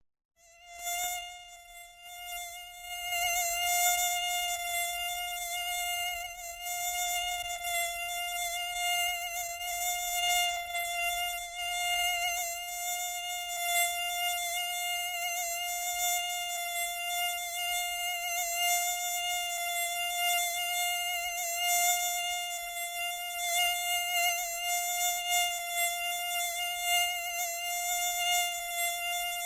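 A fly buzzing in flight: one steady buzz that starts about half a second in and keeps on, swelling and dipping slightly in loudness.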